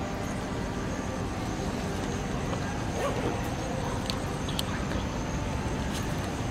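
Steady low rumbling outdoor background noise, with a faint steady high whine above it and a few faint clicks.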